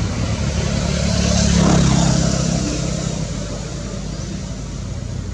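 A motor vehicle's engine hum that swells to a peak about two seconds in and then fades, as of a vehicle passing by.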